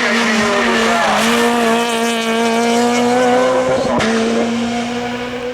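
Hill-climb racing car's engine running hard, its note held nearly steady and rising slowly, with a short sharp crack about four seconds in.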